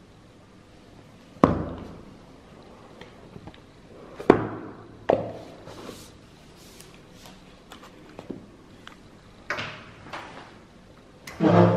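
Cardboard phone box being handled on a table: a handful of separate sharp knocks and taps as the box and its lid are set down and moved and the phone is lifted out of its tray, the loudest about a second and a half in, about four seconds in and near the end.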